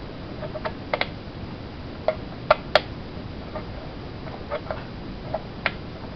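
About ten short, sharp clicks at uneven intervals over a steady hiss, the loudest two coming close together about two and a half seconds in.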